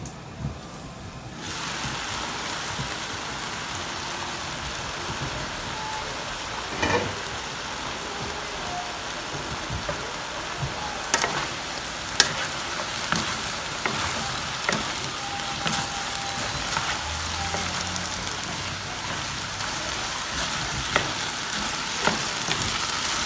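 Vegetables sizzling as they stir-fry in a hot pan, the sizzle growing louder about a second and a half in and then running steadily, with scattered sharp knocks of the stirring utensil against the pan.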